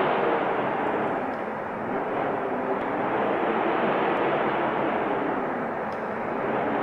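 Steady wind noise, a rushing hiss that slowly swells and eases in strength.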